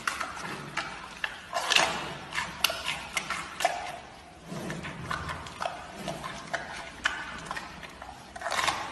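Giant panda biting and chewing on a stick-shaped treat: irregular wet crunching and clicking of its jaws, with louder bites about two seconds in and again near the end.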